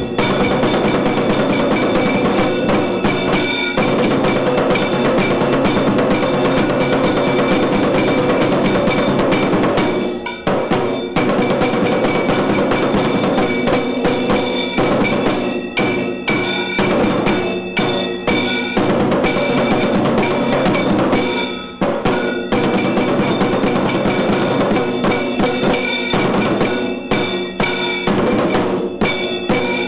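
Kailaya vadyam, Tamil Shaivite temple percussion, played by an ensemble of drums and cymbals in a dense, fast rhythm with steady ringing tones held over it. The music eases briefly about ten seconds in and again past twenty seconds.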